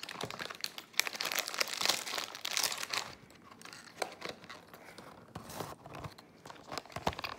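Plastic candy packaging crinkling and crackling as it is handled, densest over the first three seconds, then in scattered crackles.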